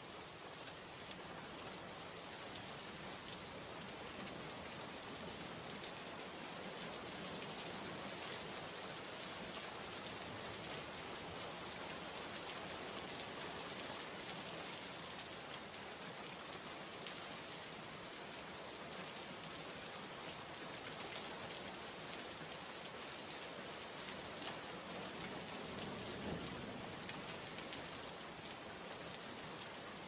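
Steady rain sound effect: an even hiss of falling rain with fine scattered drop ticks, unchanging throughout.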